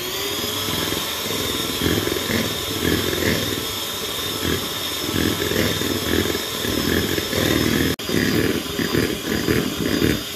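Electric hand mixer running steadily, its beaters churning cake batter in a plastic bowl as the last of the boxed cake mix is blended in: a steady motor whine over wet churning and slapping.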